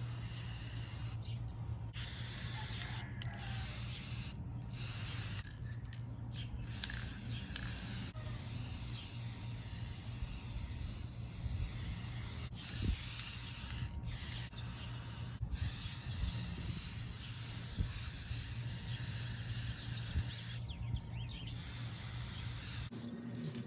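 Aerosol can of Rust-Oleum metallic gold spray paint hissing in long bursts, cut by short pauses several times as the nozzle is released, over a steady low rumble.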